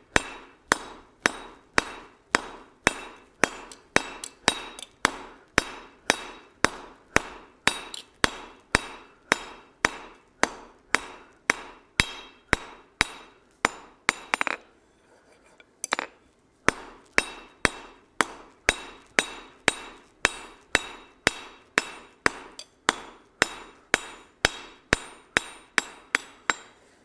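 Hand hammer forging a hot steel bar on a 66 lb cast steel anvil: steady blows about two a second, with one short pause about halfway through. A magnet stuck on the anvil damps its ring, so each blow dies away quickly.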